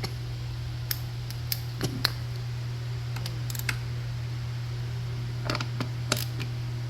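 A few scattered light clicks and taps from a screwdriver working screws into plastic bodywork while they are checked for tightness, over a steady low hum.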